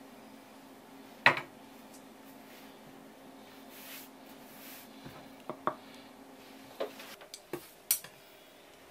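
Kitchenware being handled on a wooden counter: one sharp knock about a second in, then several lighter clicks and taps near the end, over a faint steady hum.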